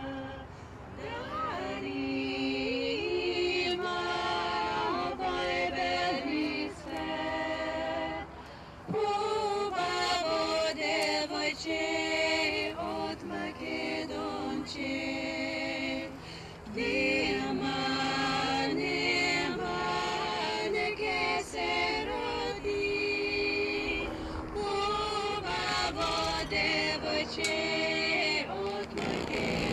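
Women's a cappella vocal quartet singing a Balkan folk song in close harmony, several voices holding and bending notes together, with short breaths between phrases about eight and sixteen seconds in.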